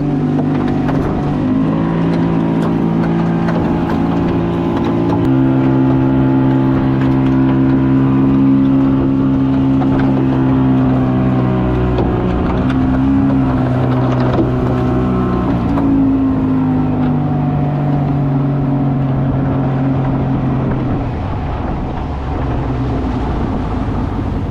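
Outboard motor of a small open fishing boat running under way, its engine note steady but stepping to a new pitch several times as the speed changes.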